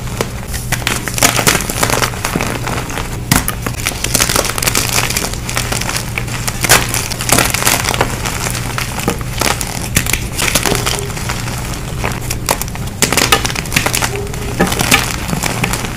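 Gym chalk being crushed, with a dense run of irregular crunching and crumbling crackles.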